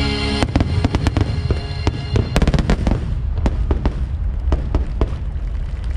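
Fireworks shells bursting in a dense volley: many sharp bangs and crackles in quick succession, thickest a little over two seconds in.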